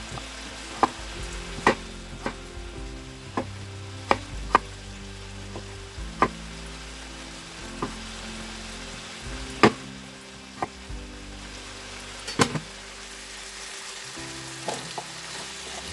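Kitchen knife cutting a peeled vegetable into cubes on a wooden cutting board: sharp, irregular knocks of the blade hitting the board, about a dozen in all.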